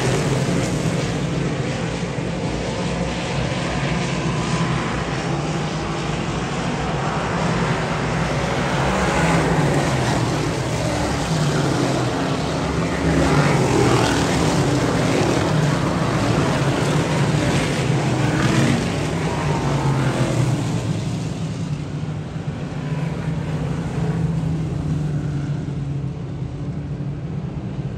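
A field of dirt modified race cars running laps, their V8 engines making a steady drone. Cars pass one after another through the middle stretch, each pitch sweeping up and falling away, and the sound thins out about three-quarters of the way through.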